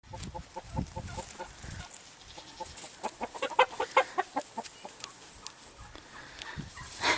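Chickens clucking in short repeated notes, coming in loose runs, busiest from about three to four and a half seconds in.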